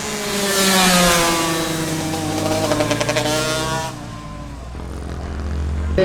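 KTM 85 two-stroke motocross bike engine revving up, then falling in pitch as the rider eases off. About four seconds in it drops to a quieter, lower steady drone.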